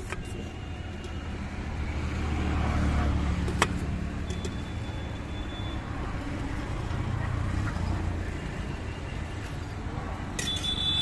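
Road traffic going by: a vehicle's low rumble swells and fades, with one sharp click about three and a half seconds in and a brief high tone near the end.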